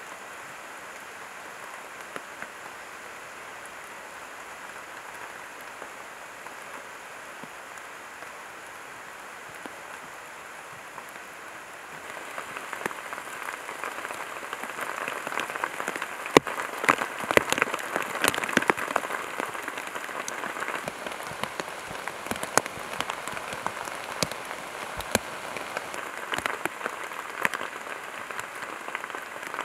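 Steady rain falling in a forest, growing heavier about twelve seconds in, with many sharp taps of single drops.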